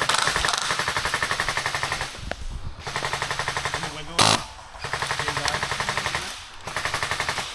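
Well Pro KS1 airsoft gun with a DSG gearbox firing long full-auto bursts at about 50 BBs a second, four bursts with short pauses between. A single sharp crack about four seconds in is louder than the firing.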